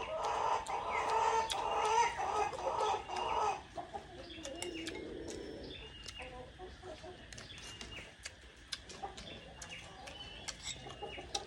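Chickens clucking, loudest in the first three and a half seconds, then fainter with scattered small clicks and a few short high chirps.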